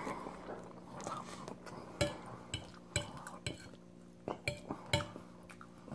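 Metal fork clinking and scraping against the plate while twirling spaghetti in alfredo sauce: a run of faint, irregular clicks, with a low steady hum underneath.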